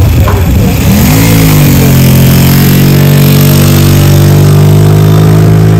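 A motor vehicle engine close by, rising in pitch about a second in and then running steadily at the higher pitch.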